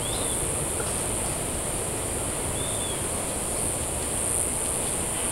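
Outdoor tropical ambience: a steady high insect buzz over a constant rushing background noise, with two short high chirps, one at the start and one about two and a half seconds in.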